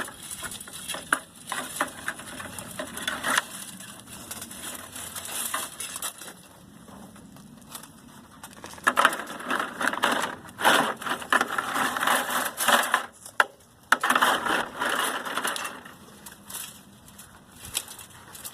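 Copper windings being pulled and worked loose from a cut-down motor armature: rapid scraping, crackling and clinking of metal, busiest in two stretches past the middle.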